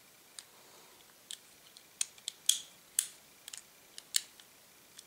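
Light, irregular clicks and taps of the parts of a Colt Police Positive Detective Special revolver being handled, about a dozen in all, the loudest clustered around the middle.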